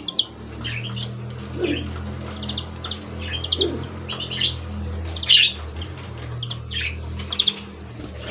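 Many small caged finches chirping and twittering over one another in short, high, scattered calls, over a steady low hum.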